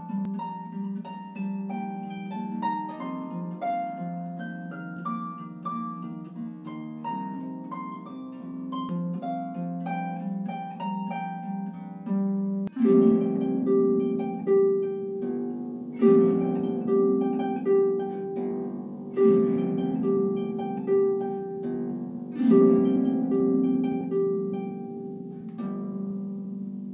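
Concert harp played by hand: a quick, bouncy melody of plucked notes over ringing low strings. About halfway in it turns louder, with full chords struck about every three seconds, each left to ring.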